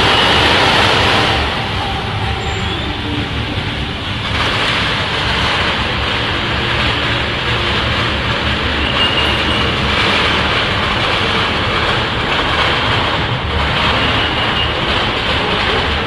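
Steady rain falling on a busy street, a continuous noisy hiss mixed with the rumble of street traffic.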